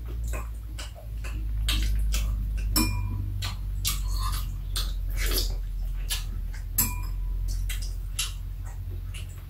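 Metal spoons and chopsticks clicking and scraping against bowls during a meal: irregular light clinks, a few ringing briefly, over a steady low hum.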